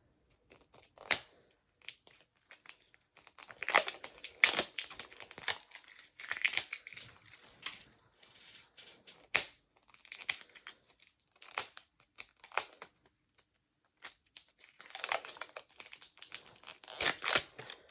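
Paper and plastic wrapping of a toy capsule being handled and unwrapped: irregular bursts of crinkling and tearing with small sharp clicks, busiest about four seconds in and again near the end.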